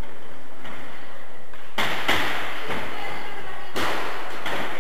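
Sharp knocks from cycle-ball play in a large, echoing gym hall: the ball being struck by bicycle wheels. Two loud knocks come about two seconds apart, with fainter ones between.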